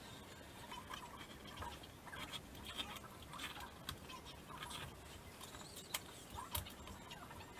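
Faint scratching of a white marking pencil drawn along the edge of a cardboard template on a rusty steel sheet, in short irregular strokes, with a couple of sharper clicks about six seconds in.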